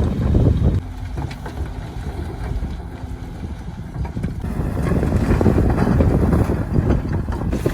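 Heavy diesel construction machinery running with a low, steady rumble. It drops quieter about a second in and builds back up after about four seconds.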